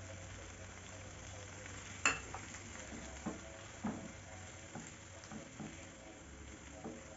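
Napa cabbage, tomato and mushrooms sizzling in a nonstick wok while a plastic spatula stirs them. A sharp knock about two seconds in, then a run of softer knocks and scrapes as the spatula turns the vegetables.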